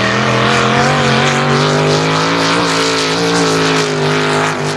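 Mud truck's engine held at high revs as it plows through a mud pit, a loud steady drone that wavers slightly in pitch, with a brief dip just before the end.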